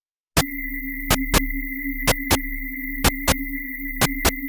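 Image-to-sound synthesis of a picture of straight lines: three steady tones, one very low, one middle and one high, sounding together, cut through by short bursts of noise that come in pairs about once a second. The bursts are the picture's vertical lines, present across all frequencies for only an instant; the steady tones are its horizontal lines.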